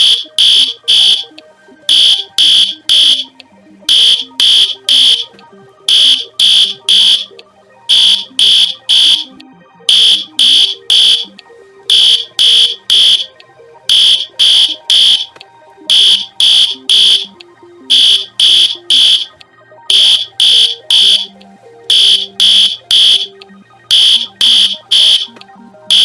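Emergency alert alarm tone: shrill electronic beeps in groups of three, a new group about every two seconds, over a faint low musical drone.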